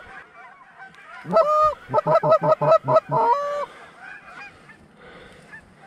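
Goose calling close by: a long held honk, a quick run of about six short clucks, and another long honk, all loud. Faint honks from a flock of Canada geese answer in the distance.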